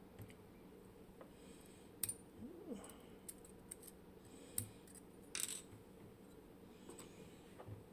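A few light metallic clicks and a brief clink of small lock parts being handled: the split wafers and sheet-metal pieces of a disassembled lock cylinder, over a faint steady hum.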